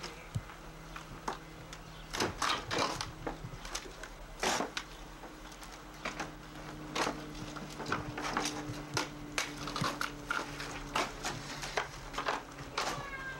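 Irregular wooden knocks, bumps and clatter as an old weathered wooden gate is pushed and lifted by hand, heaviest in a cluster a couple of seconds in and again in the middle.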